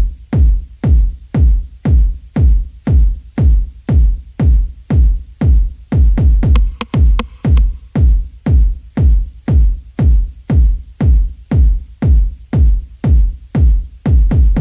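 Electronic dance music with a heavy, booming kick drum at about two beats a second.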